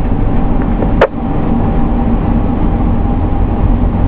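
Fire engine's diesel engine and road noise heard inside the cab while driving, a steady rumble. A single sharp click about a second in.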